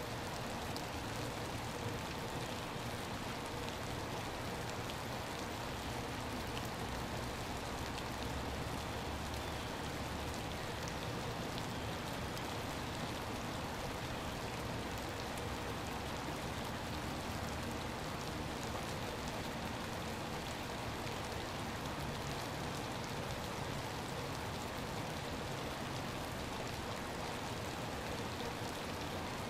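Steady freezing rain falling on shallow water and ice: an even hiss of rain with many small drop ticks and no change throughout.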